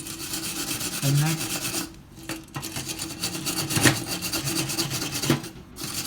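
A cleaning brush scrubbing the flame-sensor pin of a gas stove burner in quick back-and-forth strokes, with two short breaks. The scrubbing clears a dirt layer that stops the sensor detecting the flame and makes the burner go out.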